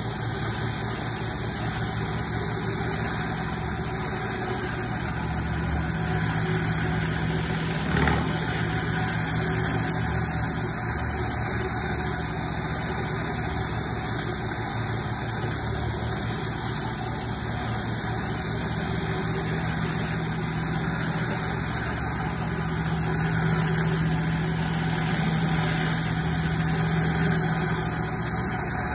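Pressure washer running steadily, with the constant hiss of a flat rotary surface cleaner spraying water onto wet limestone paving; a brief knock about eight seconds in.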